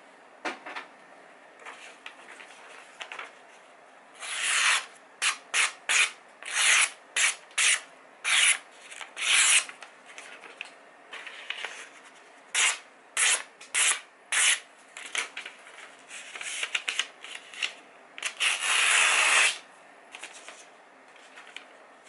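Magazine paper being sliced with a Leatherman multitool's mirror-polished 154CM steel blade: a quick run of short, hissing slicing strokes, with a few longer drawn cuts, the longest near the end.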